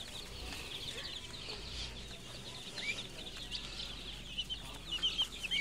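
A brooder full of baby chicks peeping, a steady chorus of many short, high cheeps that gets louder near the end.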